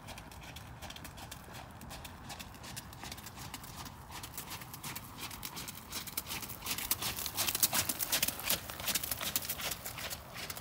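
Hoofbeats of a ridden horse moving at a steady gait on wet gravel arena footing, a quick run of sharp strokes that grows louder past the middle as the horse passes close, then eases off.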